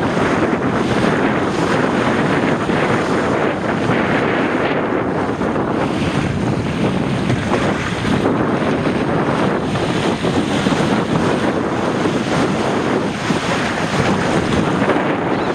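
Strong wind buffeting the microphone in a steady rush, with waves and water washing along the hull of a Fireball sailing dinghy under way.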